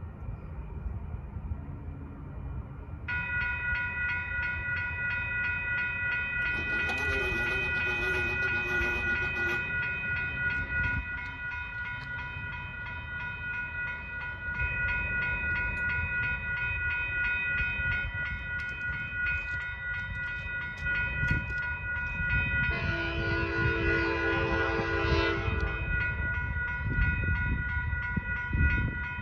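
Grade-crossing warning bells start ringing about three seconds in and keep ringing. An approaching Altamont Commuter Express commuter train sounds two long horn blasts, one about seven seconds in and one near the end, with a low rumble from the train growing as it nears.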